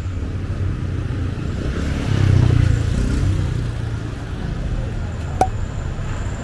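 Low rumble of vehicles on a city street with faint voices in the background, swelling briefly a couple of seconds in. A single short sharp click a little after five seconds.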